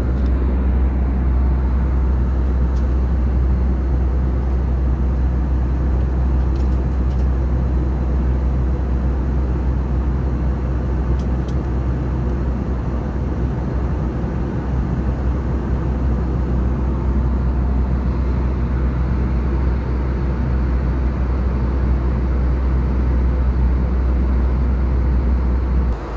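Steady cabin noise inside an Airbus A320 in flight: a deep rumble from the engines under the rush of air along the fuselage.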